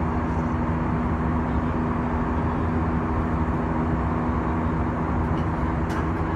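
Steady cabin noise of a jet airliner in cruise: an even drone of the turbofan engines and rushing airflow with a low hum, heard from inside the cabin.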